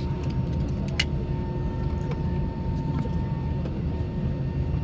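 Airbus A320 cabin noise after landing: a steady low rumble of the running engines and airflow, with a faint steady whine and one sharp click about a second in.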